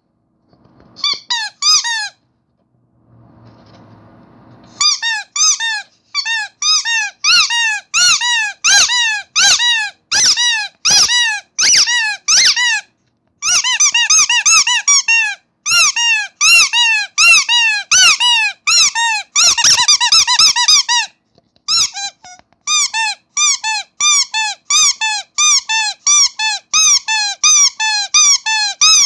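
Rubber starfish squeaky toy squeezed over and over: a rapid run of high squeaks, each rising and falling in pitch, about two or three a second. There is a pause of a few seconds near the start and a few brief breaks.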